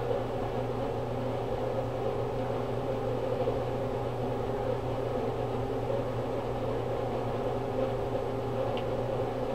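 Steady background hum with an even hiss, a constant machine-like drone in the room.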